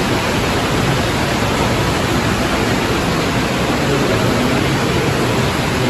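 Steady, loud rush of running water with no breaks.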